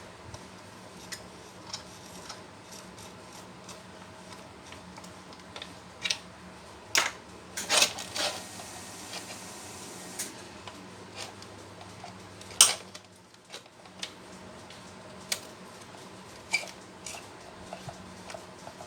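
Metal parts and hand tools clinking and knocking as a jack hammer is worked on, in scattered sharp clicks. A quick cluster comes about seven to eight seconds in, and the loudest single knock falls about two-thirds of the way through, over a faint steady hum.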